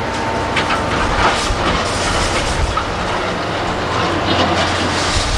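Heavy diesel construction machinery running steadily, with repeated metallic clanks and rattles over the engine sound. A steady high whine stops about a second in.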